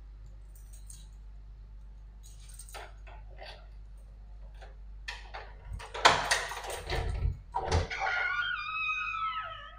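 Keys and a metal lever-handle door lock being worked: small clicks, then a loud rattle and clatter of the latch about six seconds in. The door then swings open with a long squeak that slides down in pitch near the end.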